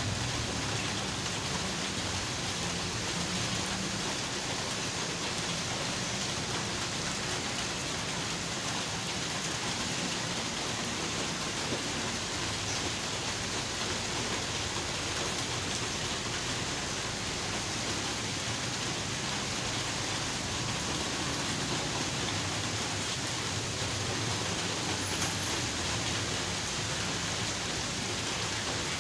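Steady hiss of heavy rain falling on a road, with a low rumble of passing traffic at times.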